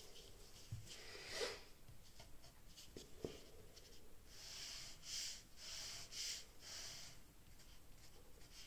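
Felt-tip pen scratching across paper in drawn strokes, a run of about five quick strokes in the second half. A soft knock comes about a second and a half in.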